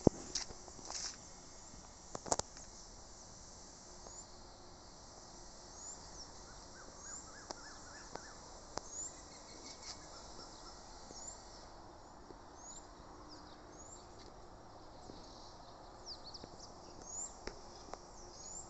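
Outdoor ambience: a steady high insect drone, with a bird repeating a short rising high chirp about once a second through the second half. A few sharp knocks sound in the first few seconds.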